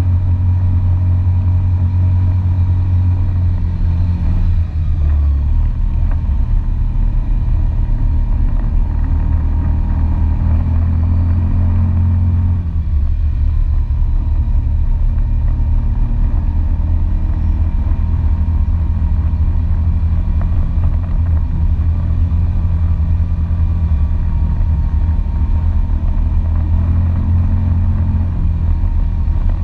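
ATV engine running as it is ridden along a dirt track. The engine note climbs around ten to twelve seconds in, drops suddenly as the throttle is let off, and climbs again near the end.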